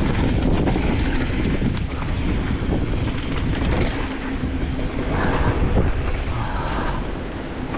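Mountain bike rolling fast down a dirt flow trail: steady tyre rumble and wind buffeting on the action camera's microphone, with the bike rattling over bumps and a couple of brief scuffing hisses near the end.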